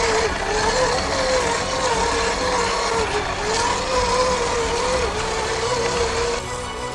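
Electric motor and gearbox of an RC scale crawler whining as it creeps over loose rocks, the whine rising and falling with the throttle, over a gritty crunch of tyres on stones. The whine stops shortly before the end.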